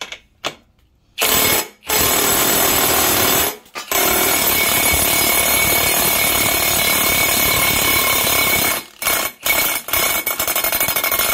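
Impact wrench hammering on a prop tool to break a Sea-Doo jet pump's threaded impeller loose, run in several loud, rattling bursts, the longest about five seconds in the middle.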